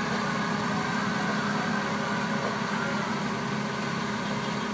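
Ford 7740 tractor's diesel engine running steadily while dragging a weight-transfer sled.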